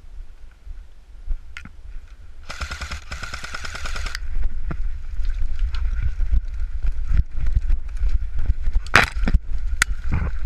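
Airsoft rifle firing a full-auto burst of rapid shots lasting about a second and a half, a couple of seconds in, followed by scattered single shots and clicks.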